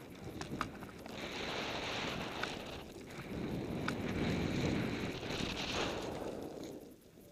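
Rushing hiss of a rider turning through deep powder snow, the snow spraying up around the body. The noise swells in two long surges, with a few sharp clicks, and falls away near the end.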